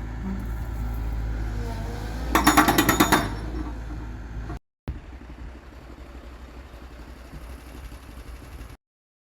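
Excavator engine running steadily, with a short burst of rapid knocking about two and a half seconds in. After a break it continues quieter, then stops near the end.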